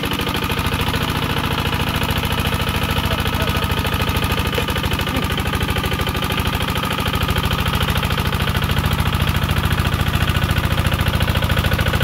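Kubota RT140 walking tractor's single-cylinder diesel engine running with a rapid, even firing beat as it hauls a loaded cassava trailer through mud, getting a little louder about seven seconds in.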